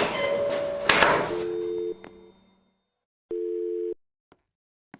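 Telephone line tone: after a click and a second of hiss with a steady tone, a low steady telephone tone sounds in on-off bursts, first for about a second, then again for just over half a second, with silent gaps between.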